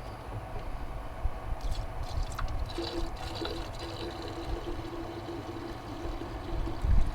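Water being poured into a car's coolant reservoir to top up the cooling system after a hose repair.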